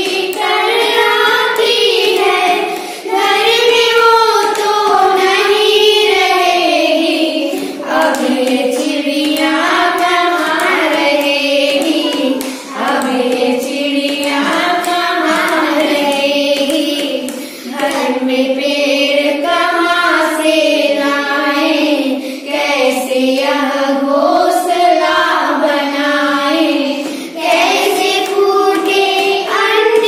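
Group of young girls singing a Hindi children's poem together in one melodic line, with short breaths between the phrases.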